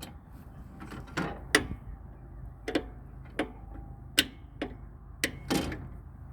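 A string of sharp, irregular metal clicks and clacks, about nine in five seconds, from handling the mower's chute blocker and its adjustment lever.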